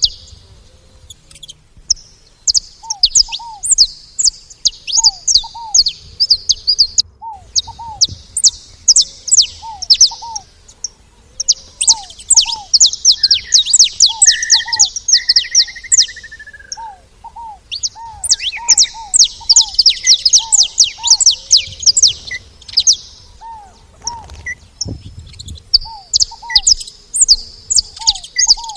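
Saffron finch chirping in rapid high bursts lasting several seconds each, with short pauses between. A lower, paired down-slurred note from another bird repeats throughout.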